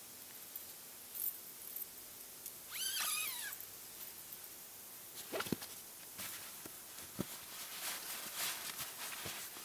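A single mewing animal call about three seconds in, rising then falling in pitch and lasting under a second. Later come rustling and a few light knocks as camping gear is handled.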